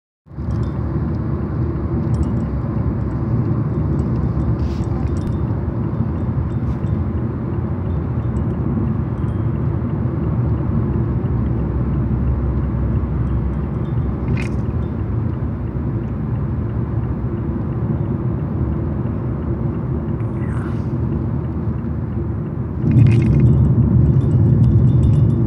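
A steady low rumble with a few faint short clicks over it, stepping up louder near the end.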